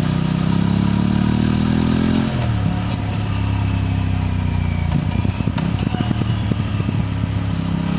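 Aprilia RS 457's parallel-twin engine and exhaust on a ride: it rises in pitch under acceleration for about two seconds, drops as the throttle closes, pops and crackles on the overrun in the middle, then pulls up again near the end.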